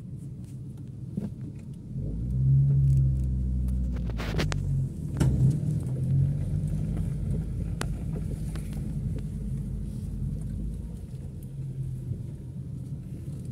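Car engine running with a low rumble as the car rolls slowly along a dirt track, heard from inside the cabin. The engine gets louder about two seconds in, and a few sharp knocks and rattles come around four to five seconds in.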